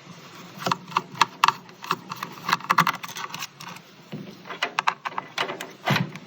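Irregular small clicks and taps of a screwdriver and screws being worked out of a LaCie external hard drive enclosure.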